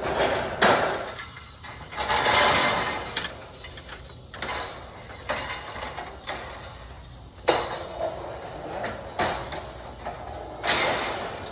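Metal-framed wire chicken coop panels scraping and clanking against a steel utility trailer as they are slid on and stacked. There are about ten separate bursts of scraping and knocking, each starting sharply and fading.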